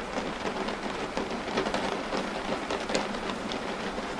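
Steady rain falling: an even hiss dotted with many small drop ticks. It is an AI-generated rain sound effect made with ElevenLabs.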